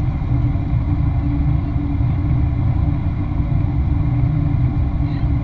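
Steady low rumble of a Boeing 737-800 in flight, heard inside the cabin by a window over the wing: its CFM56 engine and the airflow make an even drone with a faint steady hum.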